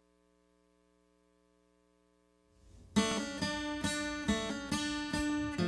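Near silence for the first half, then a song's intro starts about three seconds in: an acoustic guitar plucked and strummed, with sharp notes several times a second.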